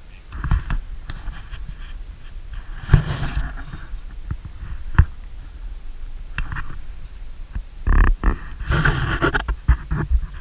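Wind buffeting the microphone: an uneven low rumble with louder rustling gusts about three seconds in and again around eight to nine seconds, and a few sharp knocks, about five seconds in and near eight seconds.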